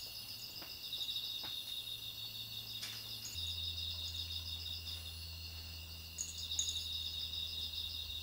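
Crickets chirping steadily, several high-pitched pulsing trills overlapping at different pitches.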